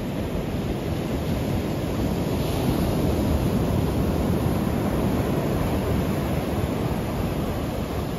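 Surf breaking and washing up a sand beach, with wind rumbling on the microphone.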